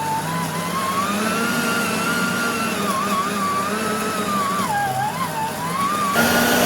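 Electric meat grinder running, its motor whine wavering up and down in pitch as it crushes the nimko snack; the sound changes abruptly near the end.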